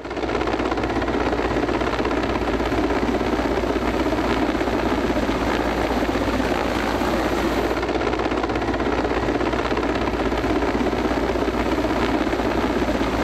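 Steady, unbroken engine or rotor noise with a low rumble, like an aircraft running.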